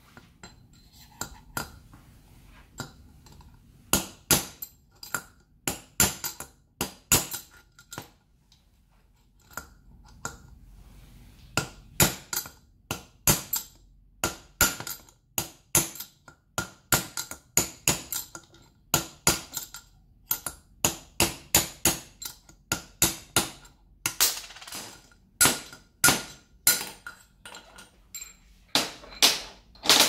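Hammer blows on a Ducati 900SS cylinder head, knocking out a cam bearing: many sharp metallic taps with a ringing tone. They come in scattered groups at first, pause briefly, then run on almost continuously at about two or three blows a second.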